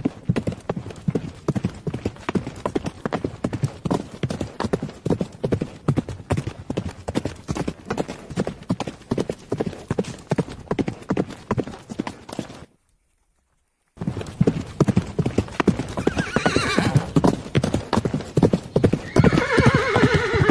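A horse's hooves clip-clopping in a steady run of sharp hoofbeats. The sound cuts out completely for about a second past the middle, then the hoofbeats carry on.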